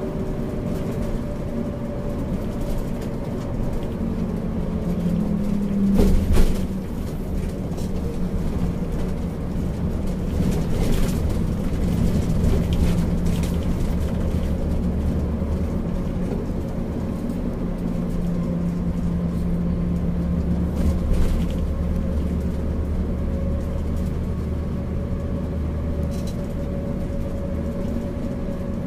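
Bus engine running steadily at cruising speed with road noise, heard from inside the cabin. A sharp knock about six seconds in is the loudest sound.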